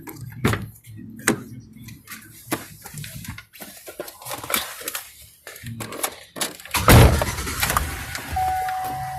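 A run of clunks and knocks, then the pickup's engine starting with a loud burst about seven seconds in and settling into an idle. A steady electronic warning chime begins near the end. The truck is being run to check that the new alternator charges.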